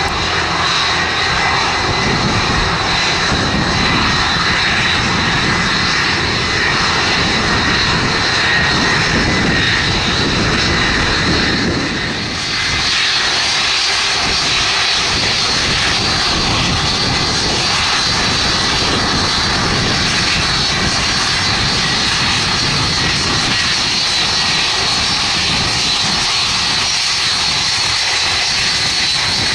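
Jet airliner engines running loud and steady, an even roar with a high whine on top; the sound changes about halfway through, the low rumble dropping and the whine coming through more strongly.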